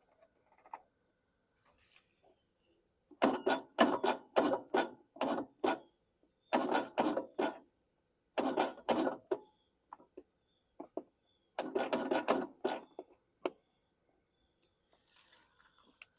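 Starter of a Briggs & Stratton 19.5 hp lawn-tractor engine cranking in four short bursts, turning over with rapid rasping strokes, about four a second, without catching. The owner takes the no-start for an inoperative compression release.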